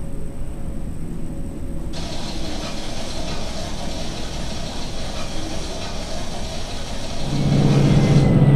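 Museum exhibit soundtrack: a steady low rumble that swells into a louder, deeper droning hum about seven seconds in.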